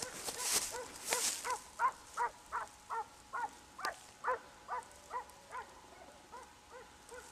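Mixed-breed hunting hound baying on a hare's trail: a steady string of short pitched barks, about three a second, growing fainter toward the end.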